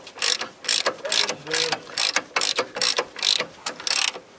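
Hand socket ratchet clicking in quick repeated strokes, about two to three a second, as a rear steering box mounting bolt is backed out of the truck frame.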